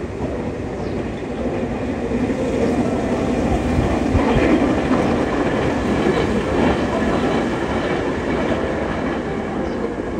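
Train passing on the railway line: the rumble and clatter of its wheels on the rails grows louder, peaks near the middle, then eases off as it goes by.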